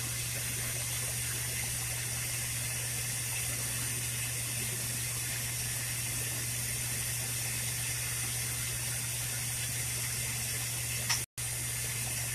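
Lampworking bench torch burning with a steady hiss while the end of a clear borosilicate glass tube is heated in its flame, with a constant low hum underneath. The sound cuts out for an instant near the end.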